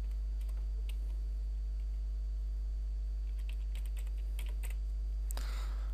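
Computer keyboard typing: scattered keystrokes, bunched together about three to five seconds in, over a steady low electrical hum.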